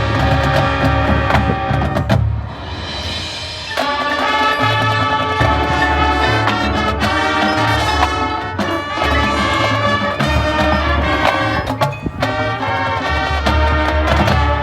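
Marching band music with mallet percussion and drums. The sound thins out about two seconds in, then the full band comes back in just under four seconds in.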